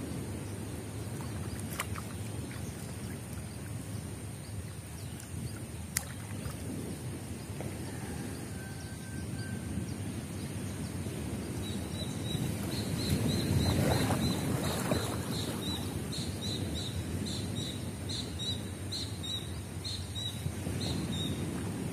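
Water splashing and sloshing as a fishing net is hauled and shaken out in waist-deep swamp water, over a steady low rumble of wind and water. The splashing swells louder a little past the middle. From about halfway through, a high call repeats rapidly, two or three notes a second.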